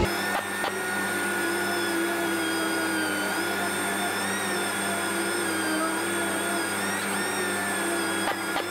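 Air-powered random-orbital sander with dust extraction running steadily, its whine wavering slightly in pitch as it is pressed against the door panel. It is flatting primer-surfacer with P320 paper to knock down the orange peel.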